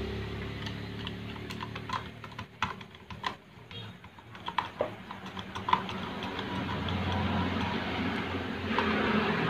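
Rewound electric fan motor: its low hum fades away, a run of small clicks and taps follows as the motor is handled, then it hums again, building steadily louder over the last few seconds.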